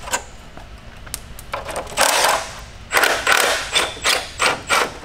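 Hand ratchet working a bolt on the engine: a scrape about two seconds in, then a run of short ratcheting strokes, about four a second, until near the end.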